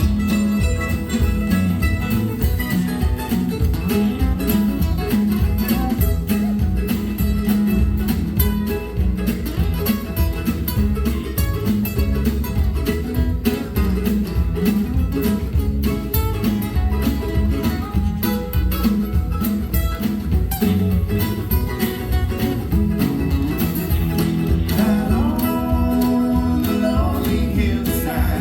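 Live band playing a bluegrass-style song, with picked guitar and other plucked strings carrying the tune over a steady rhythm.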